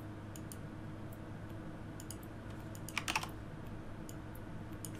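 Computer keyboard and mouse clicks: a few light clicks, then a quick cluster of louder keystrokes about three seconds in, over a faint steady hum.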